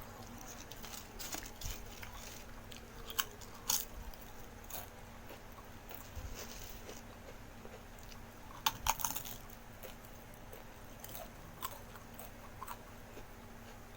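Close-up eating sounds: chewing and biting into crisp food, with scattered crunches and mouth clicks, the loudest cluster about nine seconds in.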